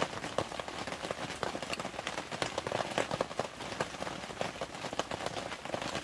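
A steady, dense crackling patter of many small irregular ticks.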